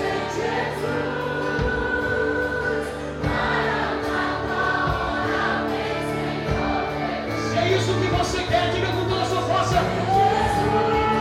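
Live worship music: a band accompanies several voices singing together in long held notes.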